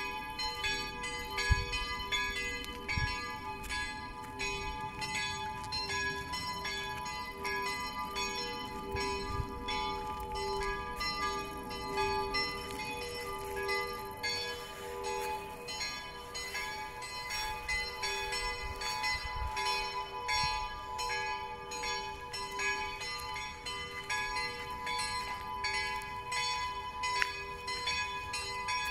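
Church bells ringing, struck over and over so that their tones hang on without a break.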